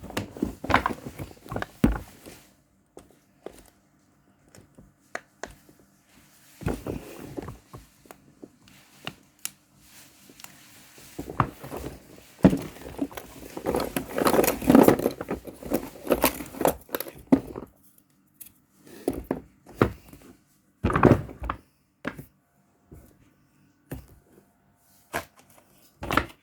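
Water bottle being fidgeted with in the hands: irregular taps, clicks and crinkling. There is a dense run of crinkling and rubbing in the middle, and a few heavier thuds.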